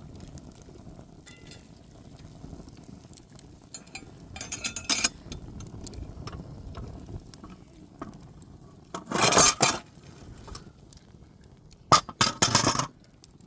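Kitchenware clattering and clinking in three short bursts, about four and a half, nine and twelve seconds in; the bursts near nine and twelve seconds are the loudest.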